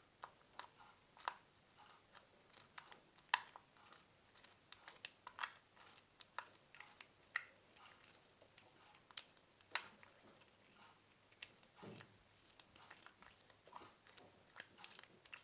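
Homemade slime being squeezed and kneaded by hand, making faint, irregular wet clicks and pops, a few a second.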